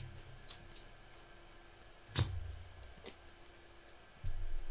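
Trading cards being handled and placed on a table: a few faint clicks and taps, one sharper tap about two seconds in, and a low rumbling handling noise near the end.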